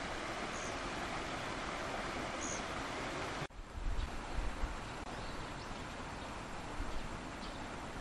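A small stream running over rocks, a steady rushing. About three and a half seconds in it cuts off abruptly, and what follows is quieter, with wind gusting on the microphone in uneven thumps and a few faint high chirps.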